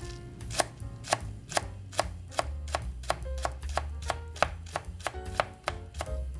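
Chef's knife slicing a Japanese green onion into thin rings on a bamboo cutting board: a steady run of sharp taps of the blade on the board, about two to three a second, getting a little quicker in the second half.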